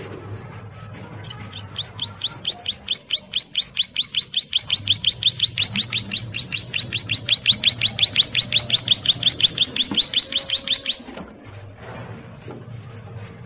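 A caged prinia (ciblek sawah) gives its long, rapid 'ngebren' trill: one short downslurred note repeated several times a second for about nine seconds. The trill grows louder, then cuts off suddenly.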